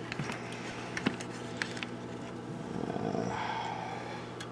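A few light clicks and taps of handling on the workbench, then a low, grumbling murmur lasting about a second and a half near the end, over a steady low hum.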